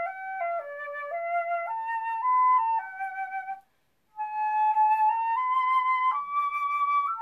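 Solo concert flute playing a slow hymn melody in smooth, sustained notes. A short pause for breath comes a little past the middle, then the line climbs step by step to a long held note near the end.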